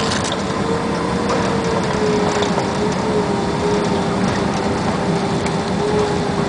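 Steady Boeing 767 cabin noise: a rushing, rumbling drone from the engines and airframe, with a slightly wavering mid-pitched whine over it.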